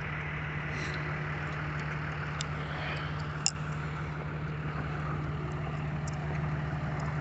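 A vehicle engine idling steadily, with a single sharp click about three and a half seconds in.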